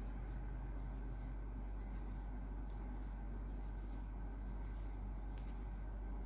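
Faint rustling and a few small clicks of a crochet hook drawing yarn through stitches, over a steady low hum.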